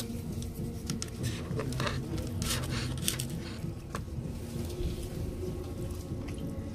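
Steady low rumble and hum of a Japanese train carriage, with scattered short rustles and clicks of food and its packaging being handled while eating.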